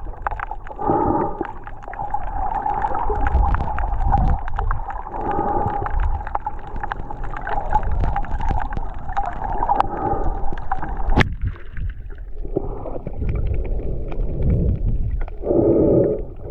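Muffled underwater sound picked up by a GoPro camera held underwater: water moving around the camera in repeated low swells, with a steady hum that cuts off after a sharp click about eleven seconds in.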